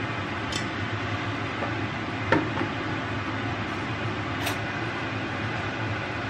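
A steady rushing hum fills the kitchen, with three light clinks of crockery or glass; the loudest comes a little after two seconds and rings briefly.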